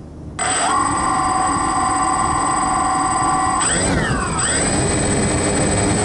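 DJI Phantom quadcopter's four electric motors and propellers spinning up about half a second in, a loud steady whine of several tones together. A little past the middle the pitch sweeps up and down as the throttle is worked, then holds steady again, with the drone still on the ground.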